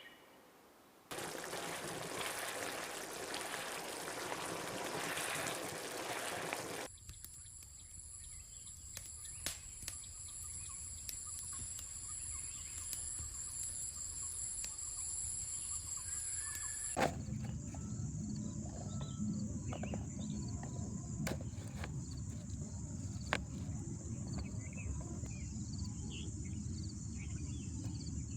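Insects chirring steadily at a high pitch, with a few sharp clicks. The first few seconds are an even hiss, and the insect sound changes abruptly about 17 seconds in, where a low rumble joins it.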